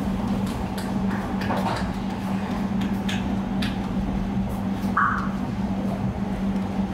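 Steady low mechanical hum, with scattered light clicks and taps and a brief higher-pitched sound about five seconds in.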